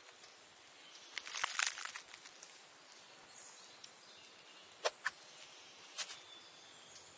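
Faint natural ambience with a short burst of crisp crunching about a second in, a mouse nibbling a mushroom; then two sharp clicks near five seconds and another near six.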